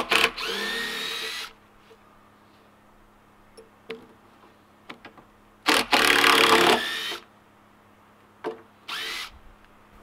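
Cordless drill running into a wooden plank in three separate runs: a longer run at the start whose whine rises and then holds steady, a louder run in the middle, and a short burst near the end. A few sharp clicks fall between the runs.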